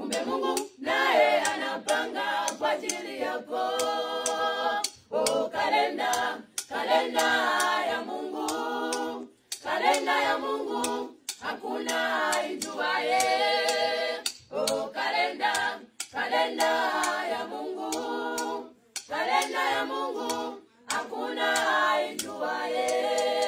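Mixed choir of women's and a man's voices singing a Swahili gospel song a cappella in phrases with short breaks between them, with sharp taps keeping time.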